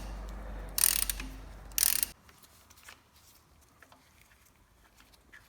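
Ratchet wrench clicking in two short bursts about a second apart as it unscrews the gearbox fill plug, then only faint ticks of handling.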